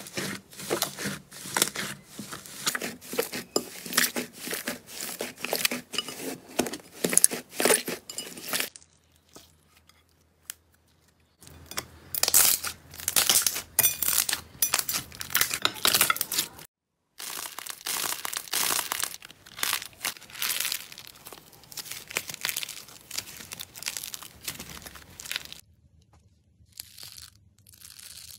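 Slime being pulled apart, squeezed and pressed by hand, giving dense runs of sticky popping and tearing, in several stretches broken by short quiet gaps. Near the end, faint snips of scissors cutting a foam sponge.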